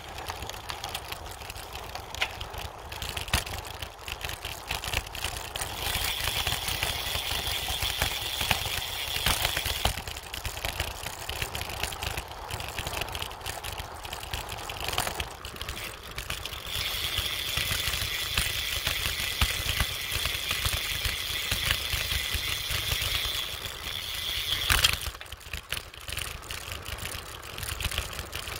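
Bicycle riding fast over a rippled dirt road: wind buffeting the handlebar-mounted microphone and a steady rattly tyre rumble, with a higher hiss coming in twice for several seconds. A sharp knock about 25 seconds in, as the bike jolts over the ruts.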